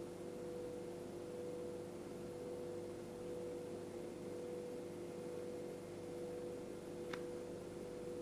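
A steady hum of two tones over a soft hiss, with a single faint click about seven seconds in.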